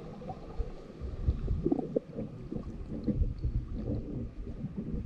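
Muffled, irregular low rumbling and gurgling of shallow water moving over sand, heard from under the surface.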